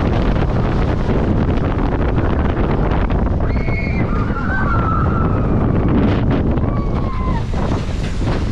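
Wind buffeting the microphone of a chest-mounted camera while a roller coaster train runs at speed along its steel track, a steady loud rush and rumble. A few brief high squeals cut through about halfway in and again near the end.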